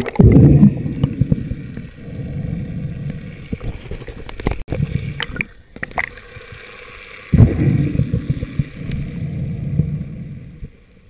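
Muffled underwater rush and gurgle of water moving past a camera housing, in two loud surges a few seconds apart, with a few faint clicks in the quieter stretch between.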